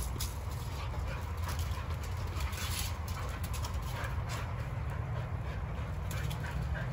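Two young dogs wrestling in play and making play noises, with a steady low rumble underneath.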